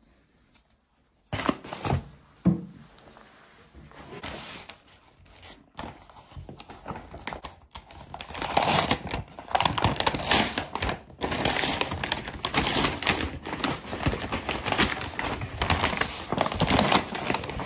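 Brown kraft paper mailing bag being torn open and crinkled by hand. A few knocks and scattered rustles begin about a second in, then dense, continuous paper crackling from about halfway through.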